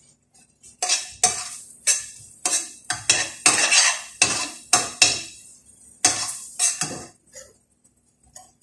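Metal spoon stirring a thick fava bean mash in a stainless steel frying pan, scraping and knocking against the pan in a run of about a dozen quick strokes that stop about a second before the end.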